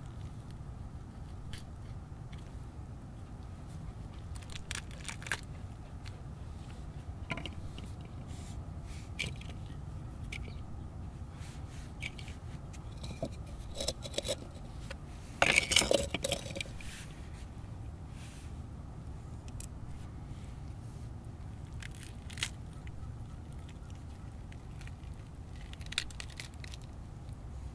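A pomegranate being pried and broken open by hand: the leathery rind tearing and crackling in scattered small crunches, with a louder burst of crackling a little over halfway through.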